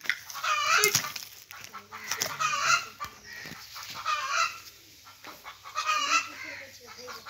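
Short high animal calls that bend in pitch, repeating about every two seconds.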